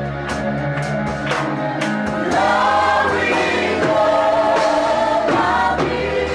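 A choir singing gospel worship music over a band, with held notes above sustained bass chords that change about two seconds in; the recording is rough and distorted.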